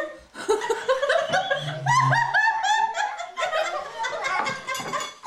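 A toddler and a woman laughing, with a quick run of repeated giggles about two seconds in.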